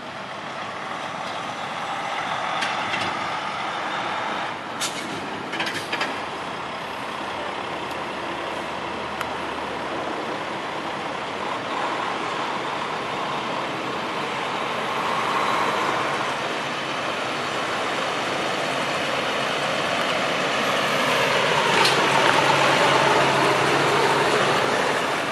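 International hi-rail vegetation spray truck running along the rails with a steady hiss of spray, growing louder as it approaches and passing close by near the end. A few sharp clicks sound about five to six seconds in.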